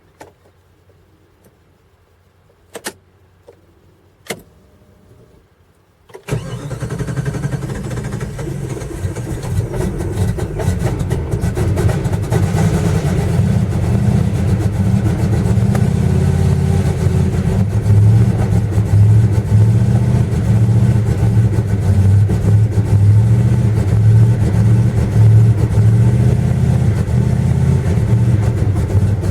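1995 Jeep Grand Cherokee 5.2-litre V8 starting cold after hard-starting trouble: two sharp clicks, then about six seconds in the engine fires abruptly and keeps running, growing somewhat louder over the next several seconds.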